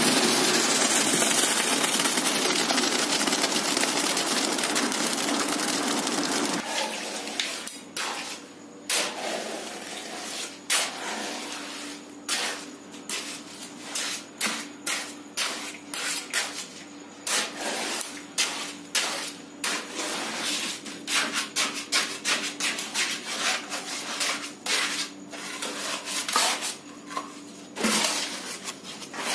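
A steady rushing noise that slowly fades as wet concrete pours from a mixer chute. About six and a half seconds in it cuts to a hand scoop scraping and knocking through wet concrete in a shallow tray, again and again, with a faint steady hum underneath.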